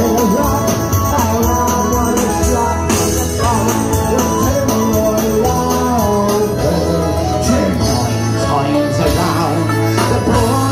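A song playing loudly: singing over instruments with a steady beat.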